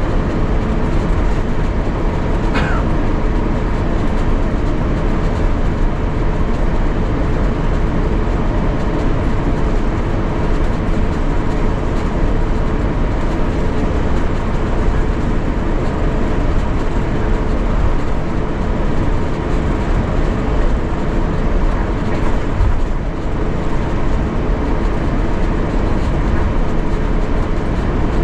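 Steady cabin noise inside an Airbus A350-900 on the ground with its Rolls-Royce Trent XWB engines running: an even rumble with a faint steady hum underneath. A short falling squeak comes about two and a half seconds in.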